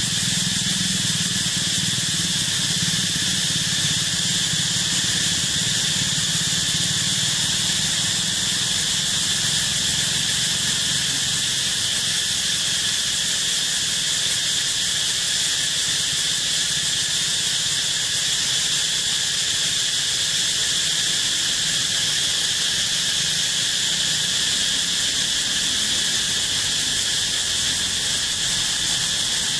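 Steady insect chorus: an unbroken, high shrill drone that does not change, over a low steady hum.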